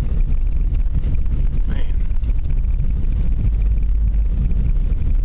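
Steady low rumble of a car driving on a snowy highway, engine and tyre noise heard from inside the cabin.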